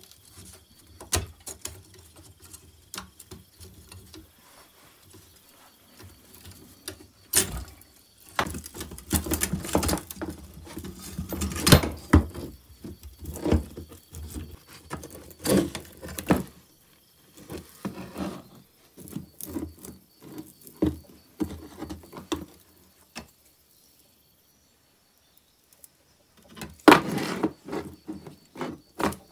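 Rusty chainsaw chain being handled and pulled around its guide bar and drive sprocket: the metal links clicking, rattling and scraping in irregular bursts, with a short pause about two thirds of the way through.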